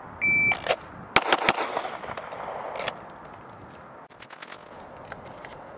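A shot-timer beep, then about a second later three 9mm pistol shots in quick succession from a Shadow Systems DR920, with the echo lingering for over a second afterwards.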